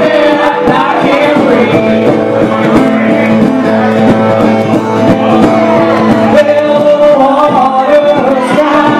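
Live acoustic song: a woman singing into a microphone, holding long wavering notes, over a strummed acoustic guitar, played through a bar's PA.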